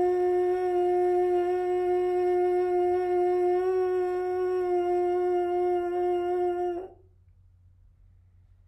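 Trombone mouthpiece buzz: one long note held at a steady pitch on a steady airstream, stopping abruptly about seven seconds in.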